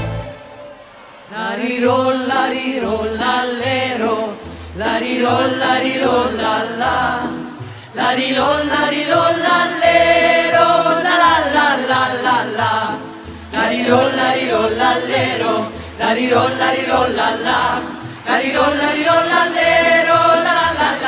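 Background music: singing voices in phrases of a few seconds over a low bass line, after a brief quiet dip at the start.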